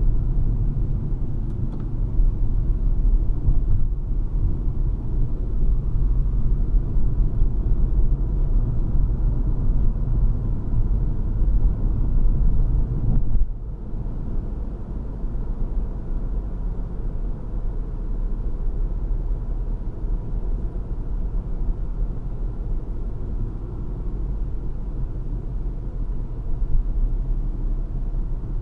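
Inside the cabin of a 2018 Toyota C-HR on the move: steady low rumble of its four-cylinder engine and CVT, with tyre and road noise. About halfway through the sound dips briefly and then carries on a step quieter.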